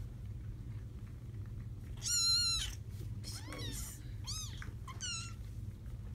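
Three-week-old kittens mewing: four high-pitched mews, the first, about two seconds in, the loudest and longest.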